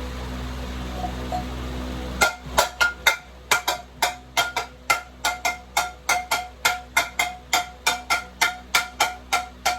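A metal object being struck hard and fast, about three clangs a second. Each strike rings at the same pitch. The clanging starts about two seconds in, after a steady low hum.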